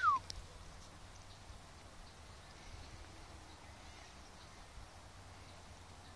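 A single short chirp sliding down in pitch right at the start, then a faint, steady outdoor background.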